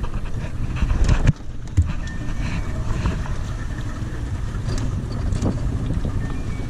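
Steady low rumble of a fishing boat, with wind buffeting the microphone and a few sharp knocks about a second in.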